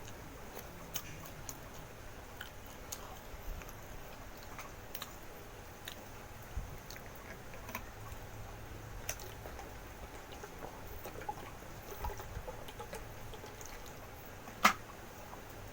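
A person eating, chewing with scattered small clicks and taps, and one sharper, louder click near the end.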